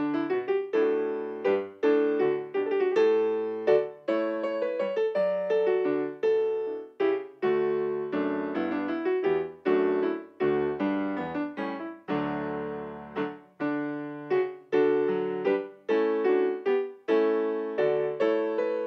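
Yamaha digital piano being played: a chordal piece, chords struck one after another and left to fade.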